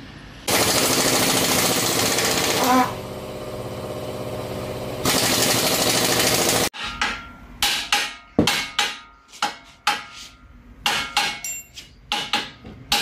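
A power tool under a Wuling van runs in two long loud bursts with a quieter whirr between them. Then comes a quick, uneven run of hammer blows on metal, each with a short ringing note, as the creaking underbody is repaired.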